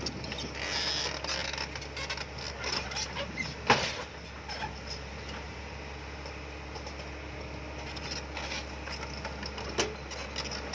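Komatsu PC100 hydraulic excavator at work: its diesel engine runs steadily under creaking and clanking from the machine, with a sharp knock a little over a third of the way in and another near the end.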